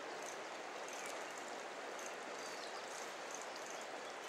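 Steady rushing of a fast-flowing river past the bank.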